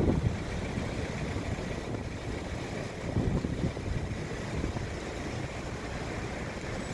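Queued cars idling and creeping through a roundabout, a steady low engine and tyre rumble. Wind buffets the phone's microphone in low gusts, strongest at the start and about three seconds in.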